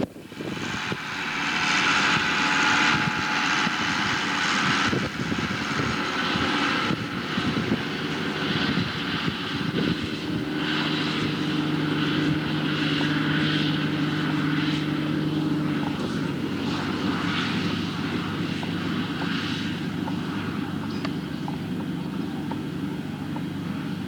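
Farm tractor engine running steadily as it pulls a hay cutter through the field. About ten seconds in, a steadier low hum joins it and drops away some six seconds later.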